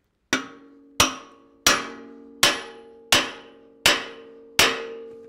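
Hammer striking a steel linkage pin on a John Deere 85G excavator's quick coupler, driving the pin through the coupler and shims. There are seven evenly spaced blows, about one every three-quarters of a second, each leaving a metallic ring that dies away.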